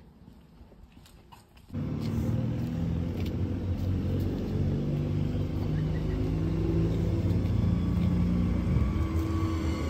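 Skånetrafiken Pågatåg electric passenger train pulling into a station platform: a steady low rumble with a humming drone from its running gear. It starts abruptly about two seconds in.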